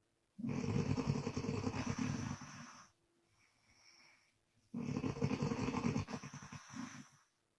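A woman snoring on the breath out, her lips flapping: two long rough snores of about two and a half seconds each, with a faint breath in between.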